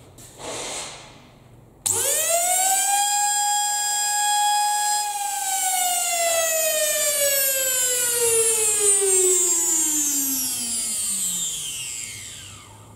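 Hoover vacuum cleaner motor switched on for a test run: its whine shoots up to full speed, holds steady for about three seconds, then is switched off and winds down in a long falling whine that fades out near the end. The run is a check of which way the rewired motor spins.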